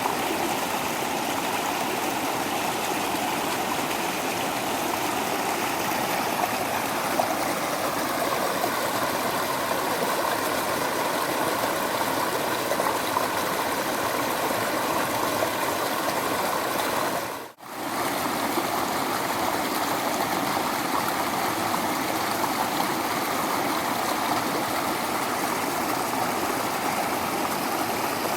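Small waterfall splashing and rushing steadily. The sound drops out for a moment about two-thirds of the way through, then carries on unchanged.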